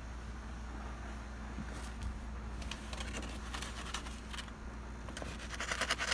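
Faint steady low hum with a few scattered light ticks, then near the end a rising rasping scrape as a wooden pizza peel slides a pizza onto the brick floor of a wood-fired oven.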